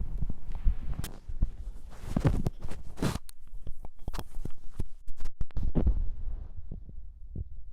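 Scratchy rubbing and clicking of a microphone pressed against a belly, over soft low thumps from inside the body. The scratching is busiest midway and thins out near the end.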